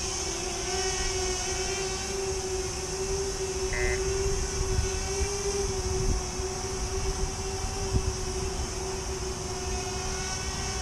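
Fimi Manta tiltrotor's electric motors and propellers hovering with a steady whine whose pitch wavers slightly as the motors adjust, over a low, gusty rumble of wind on the microphone.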